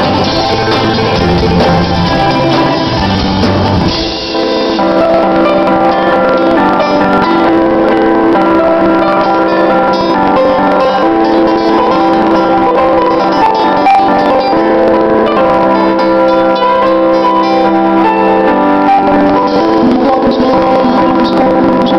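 Live band playing a song. About four seconds in, the low end drops out and the music carries on in higher notes.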